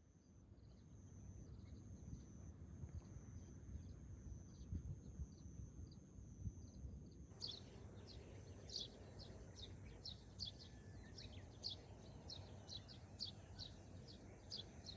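Faint outdoor ambience: a low steady rumble under a thin high steady tone with faint ticking, which changes abruptly about seven seconds in to sharp high chirps repeating about twice a second.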